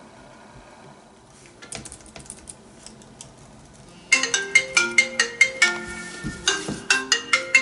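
Light typing on a laptop keyboard, then about four seconds in a smartphone ringtone starts: a loud melody of short, quick notes.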